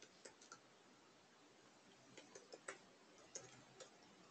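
Faint, scattered clicks of computer keyboard keys as a command is typed, about eight keystrokes with pauses between them, in near silence.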